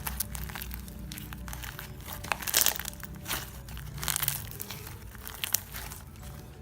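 Slime being handled, with irregular crinkling and crackling and sharp little clicks, the biggest burst about two and a half seconds in.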